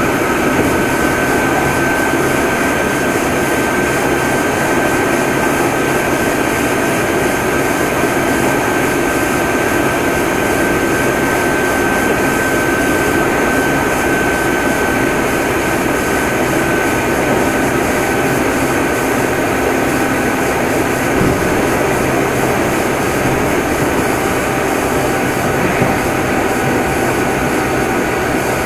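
Meitetsu 6500 series electric train running, heard aboard motor car Mo 6461: a steady rumble of traction motors and wheels on rail, with a steady high whine that fades in the second half and a lower whine coming in near the end.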